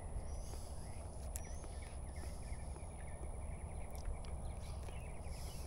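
Outdoor yard ambience: a low, fluctuating rumble of wind on the microphone, with a few short bird chirps and quick chirping ticks over a steady high-pitched hum.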